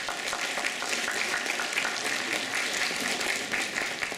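Audience applauding with dense, steady clapping.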